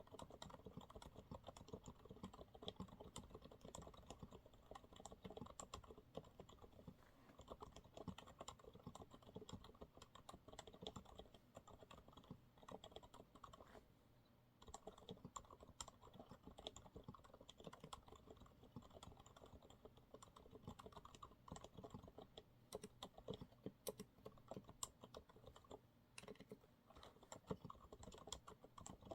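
Quiet, steady typing on a Monsgeek MG108W keyboard with TTC silent brown switches: a dense run of soft, irregular keystrokes, with a short lull about halfway through.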